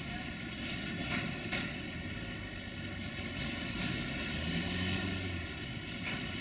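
Intermodal freight train's container wagons rolling away over the rails: a steady rumble with a few sharp wheel clicks over rail joints. A low hum swells briefly about two-thirds of the way through.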